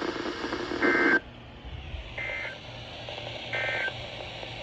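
Emergency Alert System SAME end-of-message data bursts: three short two-tone digital chirps about 1.4 seconds apart, signalling the end of the warning. Background radio hiss cuts off abruptly after the first burst.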